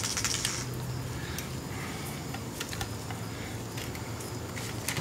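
Light metallic clicks and rattles from a plier-type piston ring compressor as its steel band is handled and spread open, with a brief scrape at the start.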